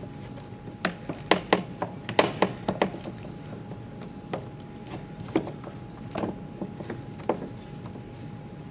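Light wooden clicks and knocks as a length of model railway track, wooden sleepers on brass rail, is handled and pressed onto a wooden jig. A quick run of clicks comes in the first few seconds, then scattered knocks, and these die away near the end.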